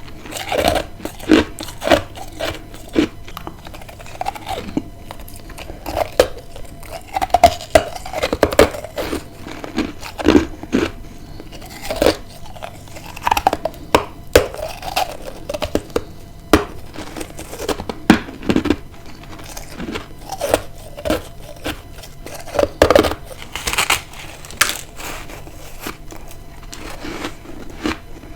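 Close-miked bites into freezer frost ice, a run of irregular crisp crunches about once a second.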